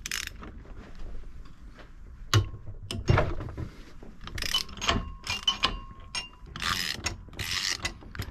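Hand ratchet clicking in a series of short strokes, among clinks and knocks of metal tools.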